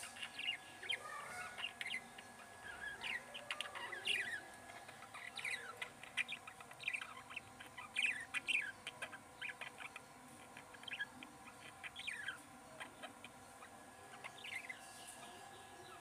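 Budgerigars chattering: rapid clusters of short chirps, many of them quick downward sweeps, coming on and off, with the busiest bursts in the middle.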